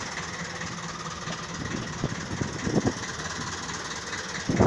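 Fishing boat's engine running steadily, with a few low thumps about two thirds of the way through and a stronger one near the end.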